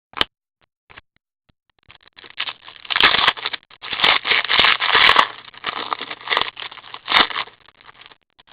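Trading cards and pack wrappers being handled: a couple of short clicks, then about six seconds of crinkling, rustling and scraping.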